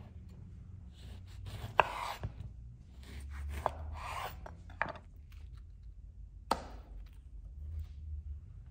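A kitchen knife cutting through a lemon on a wooden cutting board: short scraping slices through the fruit, with several sharp knocks as the blade meets the board.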